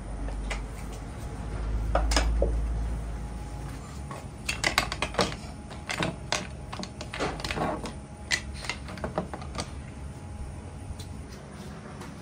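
A low rumble in the first few seconds, then small wooden tags clacking in quick clusters as they are set down one by one on a wooden counter.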